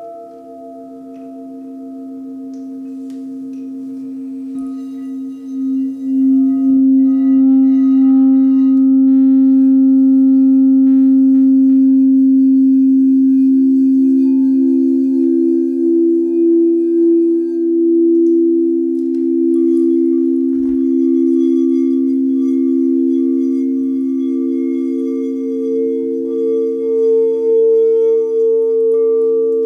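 Several quartz crystal singing bowls ringing together in long, overlapping pure tones. A low tone swells loud about six seconds in, and a higher tone joins about twenty seconds in with a slow pulsing waver.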